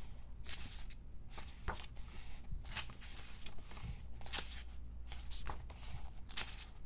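Pages of a glossy photobook being turned by hand, a short papery swish and rustle with each page, repeatedly at an irregular pace.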